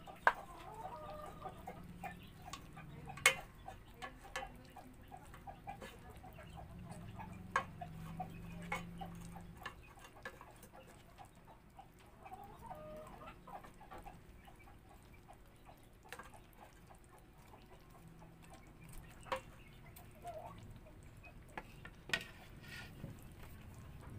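Wooden spatula knocking and scraping against a pot as fish steaks are turned in simmering sauce, with a few sharp knocks, the loudest about three seconds in.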